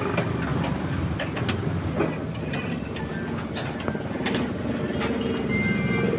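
Steady running of a small engine, with scattered light clicks and taps of tools and metal parts.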